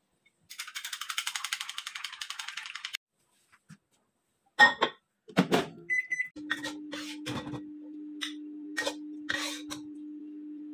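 A rapid rattling clatter for a couple of seconds, then a loud knock and a clunk. A microwave oven's keypad beeps about six seconds in, and the microwave starts running with a steady low hum, with a few clinks of dishes over it.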